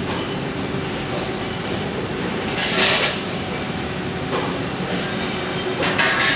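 Steady machinery noise on a steel fabrication shop floor, with a short hissing burst about three seconds in and a few faint knocks.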